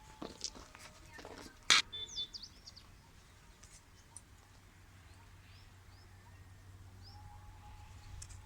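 Small birds giving a few short, high chirps with quick pitch sweeps, after a few sharp clicks or knocks in the first two seconds, the loudest about two seconds in.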